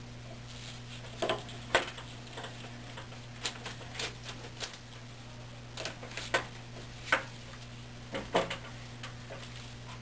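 Irregular light taps and clicks as thin beeswax strips are handled and pressed into the grooves of wooden hive top bars, over a steady low hum.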